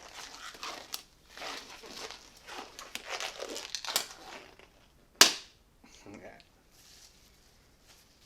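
Crinkling and rustling of something being handled for about four and a half seconds, then one sharp snap about five seconds in.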